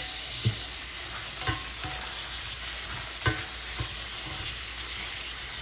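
Cold tap water running over cooked penne pasta in a strainer, a steady hiss, with a few light knocks about half a second, a second and a half and three seconds in.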